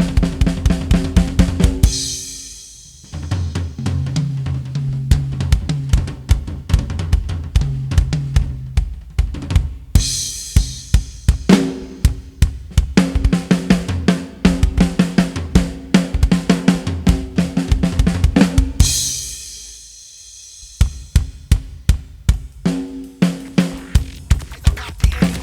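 Dance music with a fast, heavy drum-kit beat of kick, snare and hi-hat over a steady bass line. The beat drops out briefly about two seconds in and again near the end before coming back.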